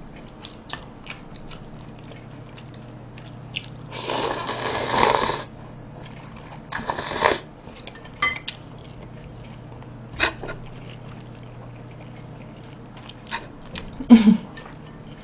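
Cold yeolmu naengmyeon noodles slurped in with a long noisy slurp about four seconds in and a shorter one about three seconds later, with chewing and small clicks of chopsticks against the bowls in between.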